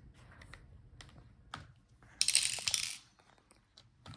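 Small parts and tools handled inside an opened laptop during battery removal: a few light clicks, then a short scraping rustle a little past two seconds in.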